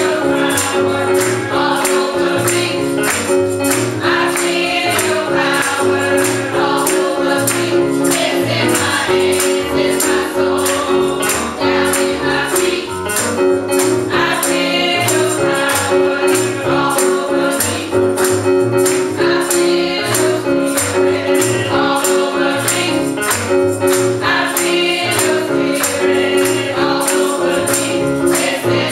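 Gospel choir singing to a steady beat, with hand clapping and keyboard accompaniment.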